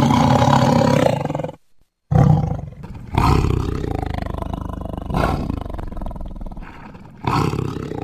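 Big cats roaring and growling: one roar of about a second and a half, a short break, then a longer run of roaring with fresh outbursts about every two seconds.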